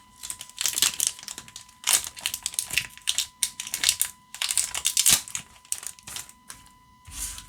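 Foil trading-card booster pack wrapper crinkling in irregular bursts as it is worked open by hand.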